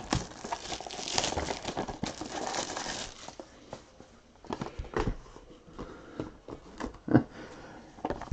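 Plastic wrapping on a trading-card box crinkling as the box is handled and opened, for about three seconds, then a few light clicks and taps as the box and its contents are handled.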